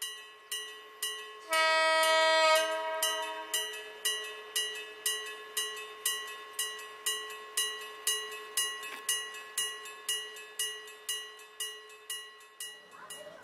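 Level crossing warning bell ringing about twice a second. About one and a half seconds in, a vintage diesel railcar sounds one short horn blast. The bell stops near the end.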